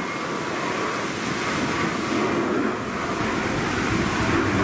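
CFM56 turbofan engines of a Boeing 737-800 at climb thrust just after takeoff: a steady rushing jet roar that grows slightly louder.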